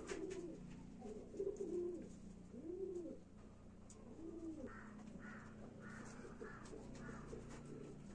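Pigeon cooing faintly: several low coos that rise and fall in pitch over the first four seconds or so, then a run of short, higher notes, over a steady low hum.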